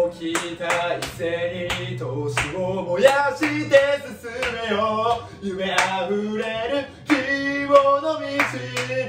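A man singing a Japanese pro baseball player's cheering song at full voice, over steady low backing notes and sharp beats about two to three times a second.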